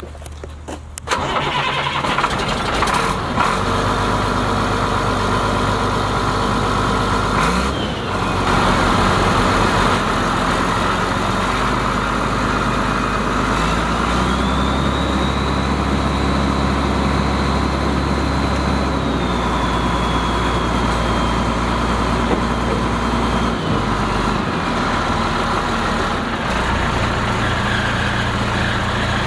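A 1994 International 2554 dump truck's diesel engine cranks and catches about a second in, then runs at a steady idle. Partway through, the engine speed rises and holds for several seconds, then falls back to idle.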